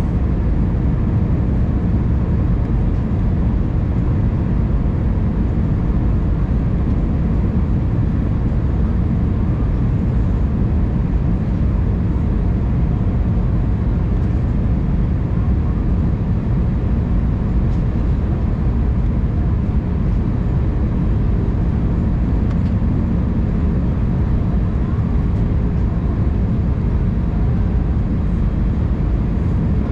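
Airbus A319 cabin noise at a window seat beside the wing on descent: a steady low rumble of the jet engines and airflow, with a faint steady hum above it.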